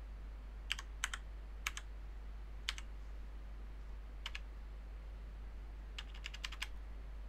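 Computer keyboard keys being typed: scattered single and paired keystrokes over the first few seconds, then a quick run of about half a dozen keystrokes near the end.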